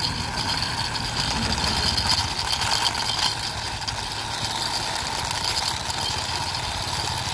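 Small plastic toy, a crawling-baby figure on wheels, pushed by hand over rough stone. Its wheels and gears make a steady, rapid rattling whir.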